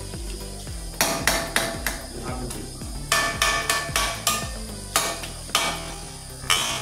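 Metal ladle knocking and scraping against the sides of a metal cooking pot in about a dozen irregular clanks while breaking up cooked tomatoes and chicken. Soft background music runs underneath.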